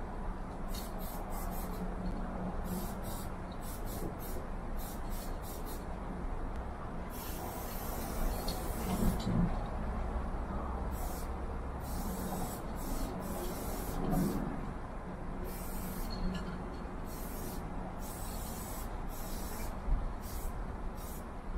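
Aerosol spray-paint can hissing in many short bursts, with a few longer sprays of a second or two, about seven seconds in and again later on.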